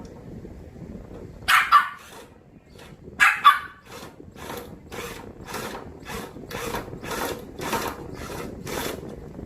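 A dog gives two short barks, then a regular rasping comes about twice a second, much like a hand tool turning a screw.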